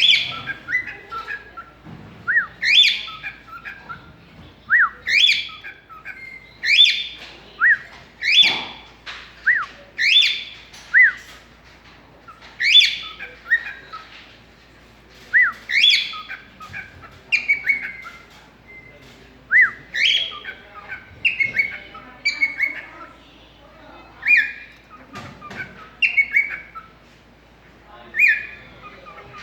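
Cockatiel calling in a long series of short, sharply rising whistled chirps, one every second or two.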